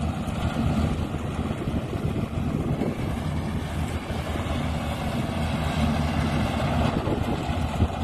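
Rice combine harvester's engine running steadily as the machine works through the standing rice: a continuous low drone.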